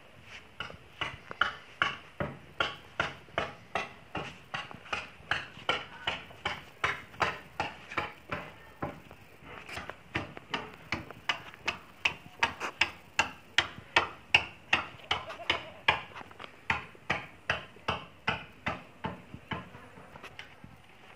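Footsteps knocking on a hard, wooden-sounding floor at a steady walking pace, about two to three steps a second, with a short pause about nine seconds in.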